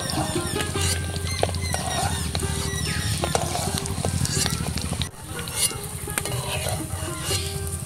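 Hot oil sizzling in an aluminium kadai as fried boiled eggs are scooped out with a metal spatula, with scattered clicks and scrapes of the spatula on the pan. The sound dips briefly about five seconds in.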